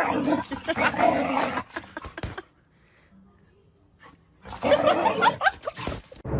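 A dog vocalizing in two loud, rough bouts of about a second and a half each, with a quiet gap of about two seconds between them.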